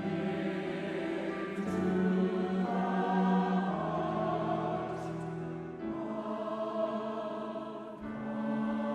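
Choir singing a slow sacred piece in long, held chords that change every second or two.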